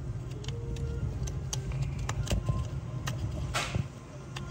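Small clicks and rattles of hands pushing the plastic wiring connector back onto a crankshaft position sensor in a cramped spot beside the engine block, with a short rustle about three and a half seconds in.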